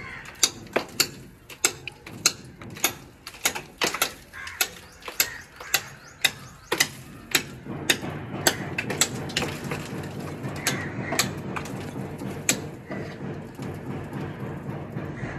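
Mechanical clicking: a run of sharp clicks about two a second. From about eight seconds in, a low steady hum runs under the clicks.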